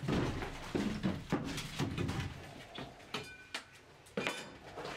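Irregular knocks, clatter and scraping of wooden interior panelling being pried loose and handled, with a short squeak about three seconds in.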